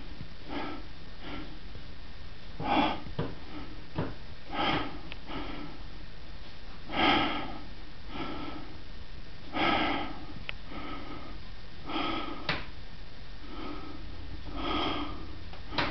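Grandfather clock striking the hours at midnight: a series of single ringing gong strokes, roughly one every second or so, each dying away quickly. A few sharp knocks fall between the strokes.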